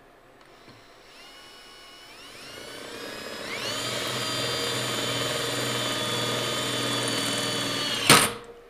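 Cordless drill spinning a hole saw into a Ford 9-inch rear axle housing. Its whine climbs in pitch in a few steps as the trigger is squeezed, runs steadily for about four seconds, then there is a sharp loud clack near the end as it stops.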